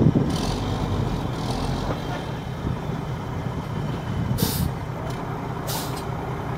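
Dump truck's diesel engine running steadily with its box raised as it dumps a load, with two short hisses about four and a half and six seconds in.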